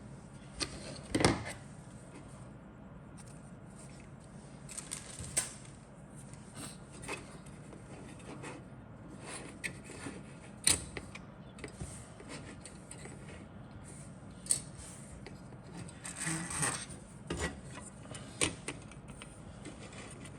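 Plastic model kit parts and box being handled: scattered light clicks and taps with rubbing and rustling, the sharpest knock about a second in.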